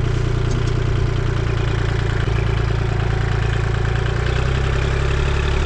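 Kubota L2501 compact tractor's three-cylinder diesel engine running steadily at close range while the front loader lifts its bale spear, the engine note shifting slightly about four seconds in.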